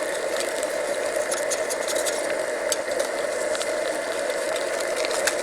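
Eggs frying in a pan, sizzling with scattered crackles and pops, over the steady rush of an MSR DragonFly white-gas stove burner turned down to a simmer.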